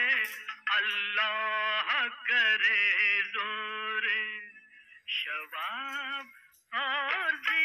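Bollywood film song playing, led by a singing voice in wavering melodic phrases over light accompaniment. The phrases break off briefly twice about two-thirds of the way through.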